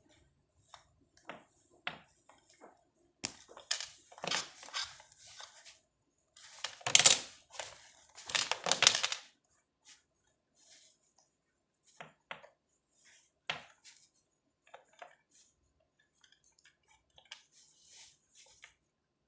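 Hand work on a Cat 6 network cable with a crimping tool: scattered clicks and small knocks, with two louder scraping, rasping stretches around seven and nine seconds in, then only faint ticks.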